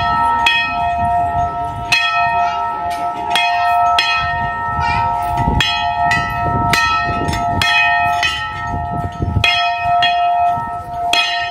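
Hindu temple bell rung over and over, about two strokes a second, each stroke ringing on into the next.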